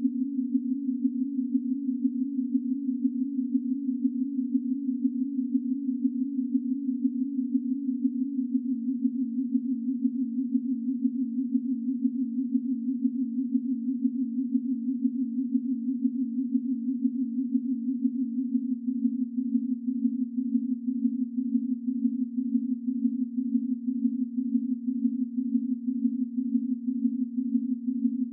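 A chord of ten pure sine tones at neighbouring prime-number frequencies, sitting around 200 to 300 Hz and beating against each other in a rapid, rippling pulse. About two-thirds of the way in, the pulsing becomes more distinct.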